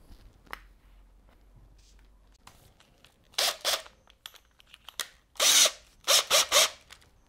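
Masking tape being pulled off the roll and torn in several short rasping strips, about three seconds in and again near the end, as a 5 mm drill bit is wrapped to mark a depth stop of a few millimetres.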